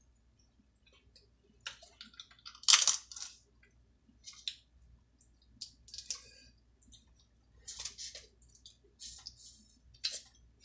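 Snow crab shells being cracked and picked apart close to the microphone: a scatter of short, sharp cracks and clicks, the loudest about three seconds in.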